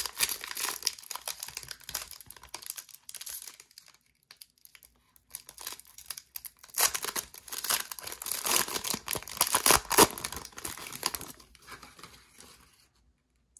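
Foil wrapper of a Donruss football card pack being torn open and crinkled by hand, in two spells of crackling with a short pause between, the second one louder, fading out near the end.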